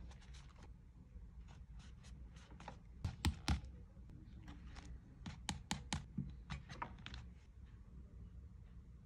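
Handling of a paper journal and a small metal craft tool: a scatter of light taps and clicks, with two sharper clicks a little over three seconds in and a quicker run of taps around five to six seconds in.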